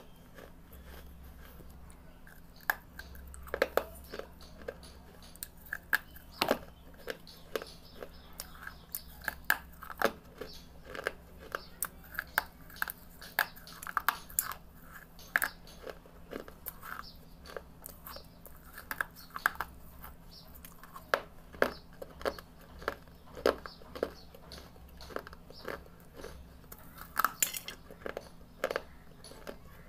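Close-up crunching as a person bites into and chews pieces of dry red clay brick, with sharp, irregular crunches coming one to three a second.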